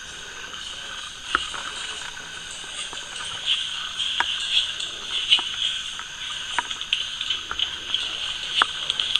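Steady night chorus of frogs and insects, a dense pulsing trill, with five or so sharp clicks scattered through it.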